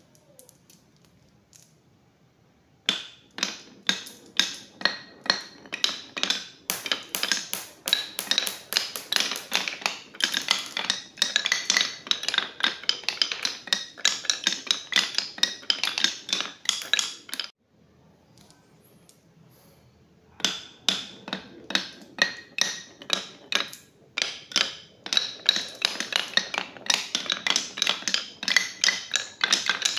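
Glass marbles rolling and clattering along a HABA wooden marble-run track, a dense run of quick clicks and knocks. It starts about three seconds in, pauses for a few seconds in the middle, then picks up again.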